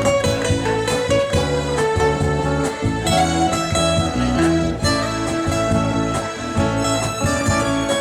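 Band music without vocals: an instrumental passage of a Thai pop ballad, led by guitar over bass and a steady beat.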